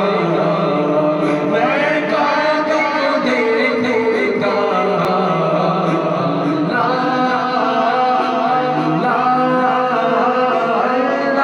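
A man singing a naat, an Islamic devotional hymn, in an ornamented, gliding melody, over backing voices holding a steady drone, with no instruments.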